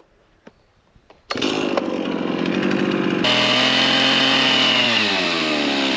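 Chainsaw starting up after a near-silent second, running loud, then revving higher about three seconds in. Its pitch then falls steadily as it slows toward the end.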